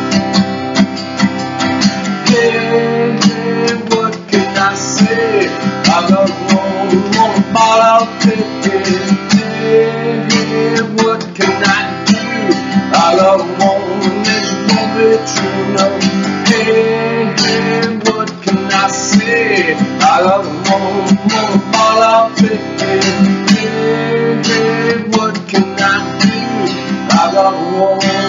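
Acoustic guitar strummed in a steady, continuous chord rhythm.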